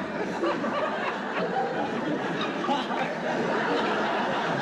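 A group of people laughing and chuckling amid overlapping chatter, a steady dense babble of many voices.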